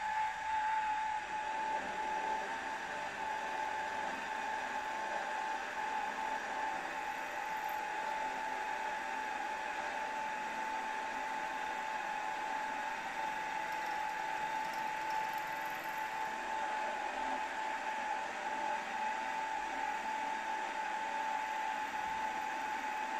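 Drilling machine spindle running with a steady whine as a small drill bit cuts tapping holes through the end plates into a model steam engine's cylinder block.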